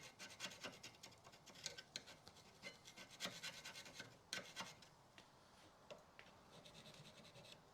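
Faint, irregular scraping strokes of a tool against the brake caliper carrier's pad seats, scratching off debris and corrosion; the strokes thin out in the second half.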